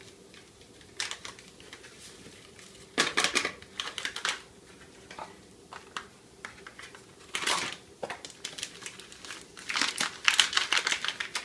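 Crinkling of the inner packets of instant vanilla pudding mix as they are opened and emptied, in short irregular bursts with quiet gaps between.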